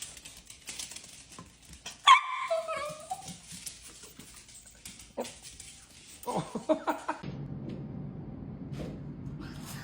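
A dog whining: one loud drawn-out whine about two seconds in that falls in pitch, then a quick run of short whimpers around six seconds in.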